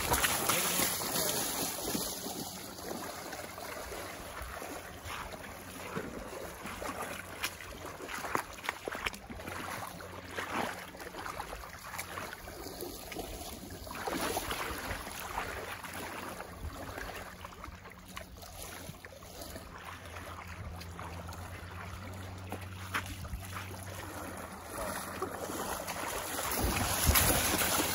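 Outdoor riverside noise: wind buffeting the microphone and moving water, with scattered light clicks and knocks and a faint low steady hum underneath.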